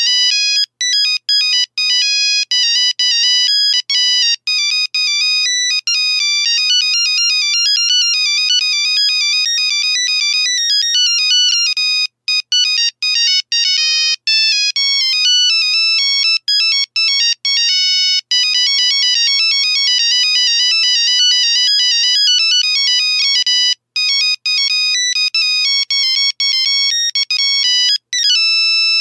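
Nokia 3310 monophonic ringtones playing: fast runs of high, beeping single notes, one note at a time, with short gaps between phrases.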